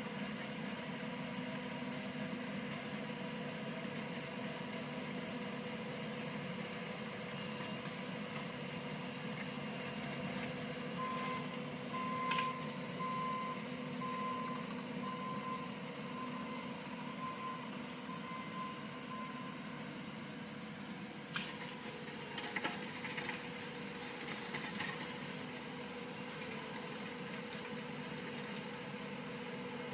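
Skid steer engine running steadily under work. Near the middle a reversing alarm beeps evenly for about nine seconds, and a few sharp knocks and clatters follow.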